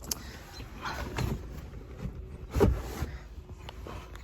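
Plastic knocks and scraping as a screwdriver pushes the 12-volt power outlet socket up out of its console housing, with a sharp knock a little past halfway.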